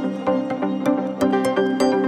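Background music: short repeated pitched notes over a steady, clicking beat.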